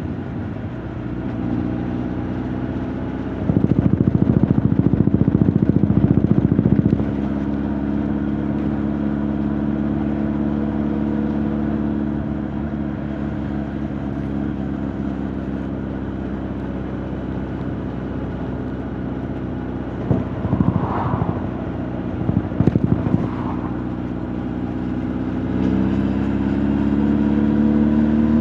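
Honda CB1300 Super Bol d'Or's inline-four engine and exhaust running steadily under way, heard through the rider's jacket. It gets louder for a few seconds about three seconds in, two brief higher sounds come through about twenty seconds in, and the engine note rises near the end as the bike accelerates.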